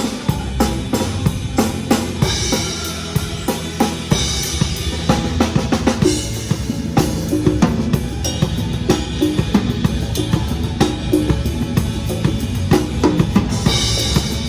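Pearl Reference drum kit played to a song's backing track: a busy beat of bass drum and snare over a bass line, with crash cymbal accents about two, four and six seconds in and again near the end.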